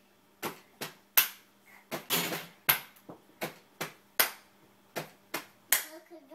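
Hands clapping in a steady rhythm, about two to three sharp claps a second, with a brief rustling noise about two seconds in.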